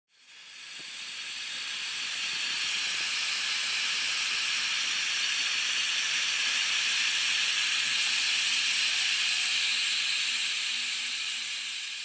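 Steady hiss of steam, fading in at the start and fading out near the end.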